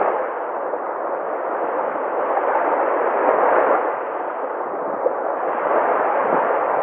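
Sea waves breaking and washing in, a continuous rush that swells a little about halfway through.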